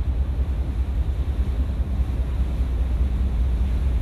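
Wind buffeting the microphone on the open deck of a ferry under way, over the steady low rumble of the ship.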